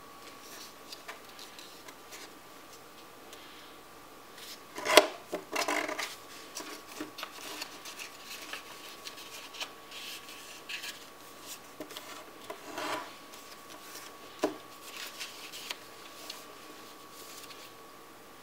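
A sheet of paper being folded and creased by hand on a tabletop: irregular crackling and rubbing of the paper, sharpest about five seconds in and again near thirteen seconds, over a faint steady hum.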